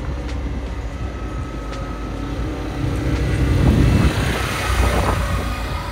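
Can-Am Outlander MAX XTP 1000R ATV's V-twin engine running smoothly as the quad rides past. It grows louder about three to four seconds in as it comes close, then eases off.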